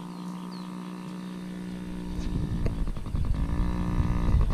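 Yamaha PW50's small two-stroke single-cylinder engine running on a test ride, its pitch dipping and rising again and growing louder over the last couple of seconds.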